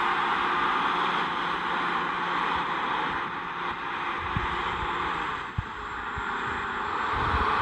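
Combine harvester running in a wheat field: a steady mechanical hiss with a faint engine hum underneath, broken by a few brief low thumps about four and a half and five and a half seconds in.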